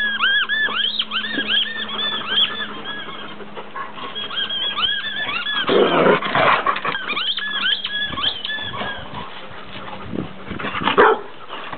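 Rubber squeaky dog toy being chewed by a Bernese mountain dog, squeaking over and over, several squeaks a second, each a quick rise and fall in pitch. The squeaking breaks off briefly about four seconds in and stops about nine seconds in, with a louder burst of noise around six seconds in.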